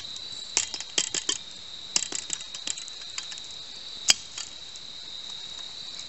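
Crickets chirring steadily at one high pitch, with scattered light clicks and taps and one sharp click about four seconds in.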